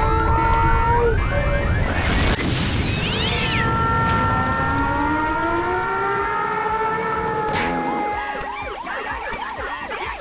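A dense pile of cartoon sound effects: a loud rushing noise like an erupting geyser, under many overlapping sliding, wailing tones like sirens and shrieks. The rushing fades about eight seconds in, leaving quick chirping glides.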